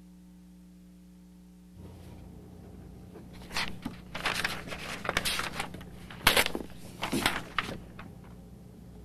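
A steady low hum, then from about two seconds in, paper being handled at a desk: the sheets of a multi-part carbon form are leafed through and pulled, making a run of short, crisp rustles.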